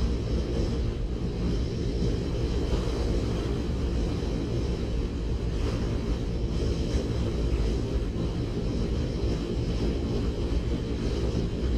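Wind buffeting the microphone of a moving camera in a headwind, a steady low rumble.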